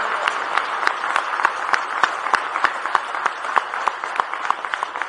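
Audience applauding in a large room. One clapper close by stands out with sharp claps at about three a second.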